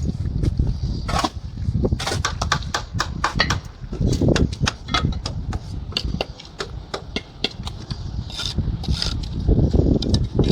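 Masonry work on concrete blocks: quick, irregular sharp taps and knocks of a mason's tools on block and mortar, bunched in a fast run a couple of seconds in, over a low rumble.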